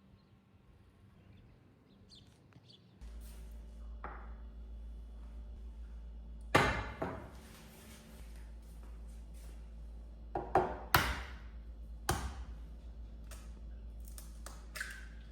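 Kitchen dishes and utensils being handled: several sharp knocks and clinks, the loudest about halfway through and a few seconds later, over a low steady hum that starts a few seconds in.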